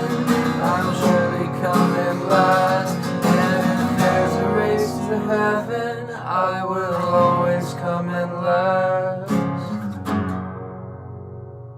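Acoustic guitar strummed in chords under a singing voice, ending on a final strum about nine seconds in that rings out and fades.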